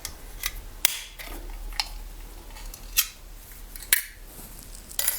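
About six sharp, separate clicks and taps from food and drink containers being handled close to the microphone.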